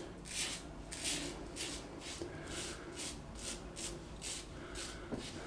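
Blackland Osprey adjustable safety razor, with a Gillette Rubie blade, set just past 7, scraping through lathered stubble on the cheek and neck in short, quick strokes, about three or four a second.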